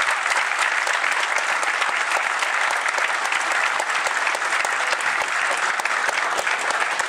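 Audience in a lecture hall applauding steadily, with some cheering, at the end of a talk.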